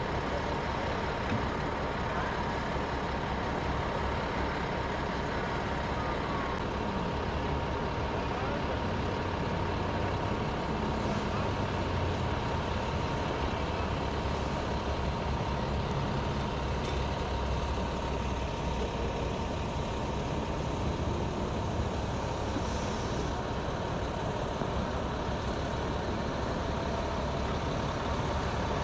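Diesel engines of fire department water tender trucks running as the heavy tankers idle and move, a steady low rumble. A thin steady whine sits over it and fades out about halfway.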